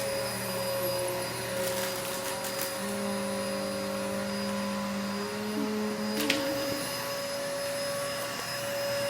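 Vacuum cleaner running steadily with a constant whine, and a sharp click about six seconds in.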